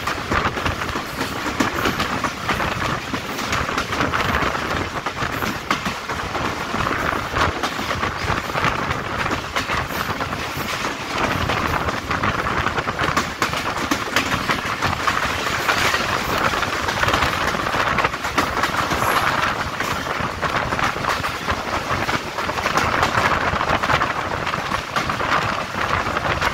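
Passenger train coaches running at speed, heard close up from a coach window: steel wheels rolling on the track with quick clicks over the rail joints under a steady rush of noise.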